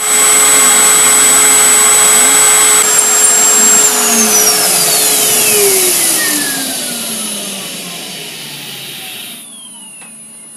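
Router motor on a DIY CNC machine running with a vacuum cleaner for dust extraction, a loud rushing noise with a high whine. About four seconds in, a motor is switched off and winds down, its whine falling steadily in pitch. The rushing noise stops abruptly about nine seconds in.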